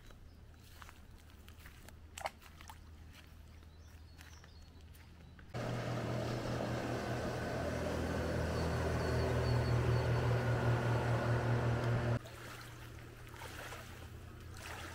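Motorboat engine running as the boat passes at speed on the river. The steady engine note grows louder for about six seconds. It comes in abruptly about five seconds in and cuts off suddenly about twelve seconds in. Before it there is only quiet outdoor background with one sharp click.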